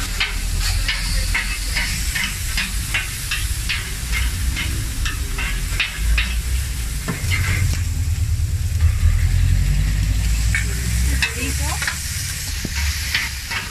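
A cook's knife chopping meat on a hot flat steel taco griddle: quick clacks of the blade on the metal, about three or four a second at first and sparser in the second half, over a steady sizzle of frying meat. A low rumble swells in the middle.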